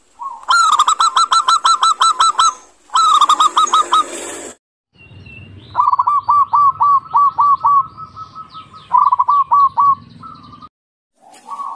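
Zebra doves (perkutut) singing: phrases of rapid, short, evenly spaced coo notes, one phrase ending in a held note. The phrases are separate recordings joined with sudden cuts.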